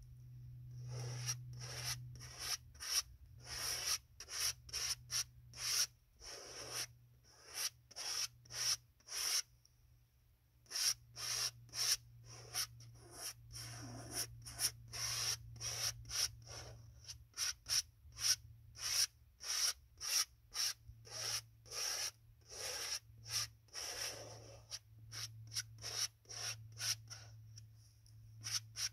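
Oil paint being worked onto a large stretched canvas in short scraping strokes, about one or two a second, with a few brief pauses between runs of strokes.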